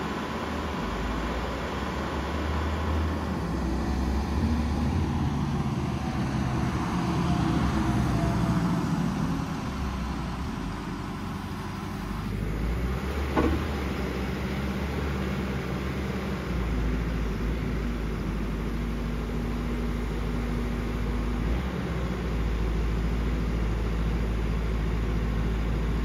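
Engine of a farm machine running steadily with a low rumble. The sound changes abruptly about twelve seconds in, with a single sharp knock a second later.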